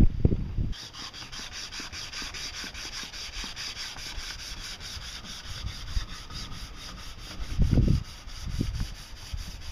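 Hand sanding: a folded sheet of sandpaper is rubbed rapidly back and forth around an upright tube post, a steady rhythmic scratching of about four to five strokes a second. A few dull thumps come near the end.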